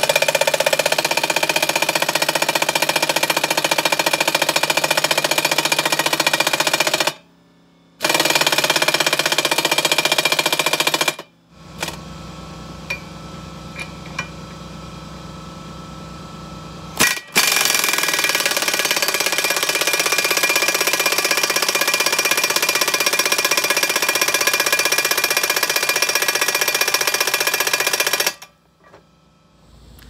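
Pneumatic impact wrench hammering on the forcing screw of a ball joint press, trying to push the caps out of a rusted-solid driveshaft U-joint. It runs in three long bursts, the last about ten seconds long. A quieter steady sound fills the gap between the second and third bursts.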